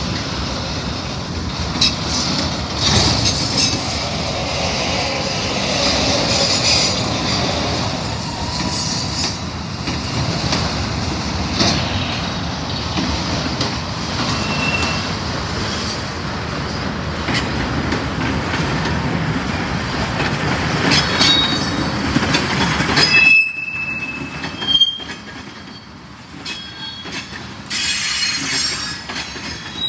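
Freight cars rolling slowly past: steady wheel-on-rail rumble with clanks and knocks from the cars. Brief high-pitched wheel squeals come about 15 seconds in and again around 23 to 25 seconds. At about 23 seconds the rumble suddenly drops away, leaving squeals and scattered clanks.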